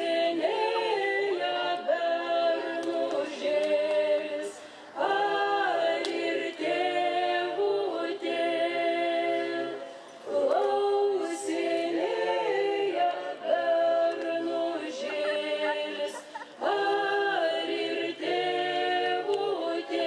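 A group of voices singing unaccompanied, a choir-like folk melody in held notes, with the same phrase returning about every five to six seconds.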